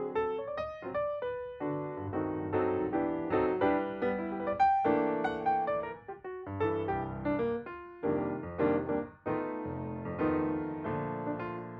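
Background music: piano playing a steady flow of chords and melody notes.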